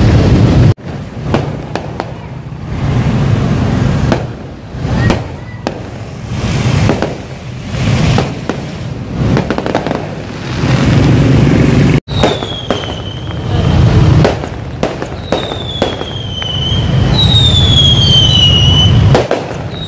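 Fireworks going off overhead: repeated bangs and crackling. From about halfway, several whistles that each fall in pitch over a second or so.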